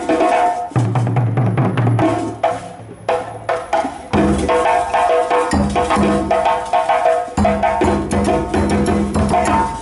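West African drum ensemble: many djembes played by hand over deep rope-tuned dunun bass drums beaten with sticks, in a dense, continuous interlocking rhythm whose bass pattern shifts twice.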